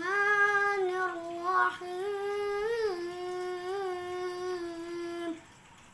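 A boy reciting the Quran in a melodic chant, holding long drawn-out notes that rise and fall in pitch; he ends on a long held note about five seconds in.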